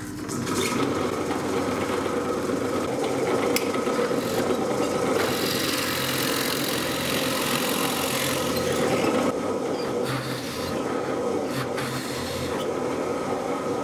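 Benchtop drill press running steadily while its twist bit bores a row of holes into a wooden strip.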